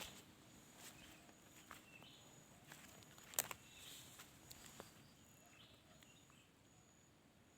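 Faint, scattered crunches and clicks of someone moving about on the ground, the loudest about three and a half seconds in, with a few short chirps and a faint high insect-like whine in the background.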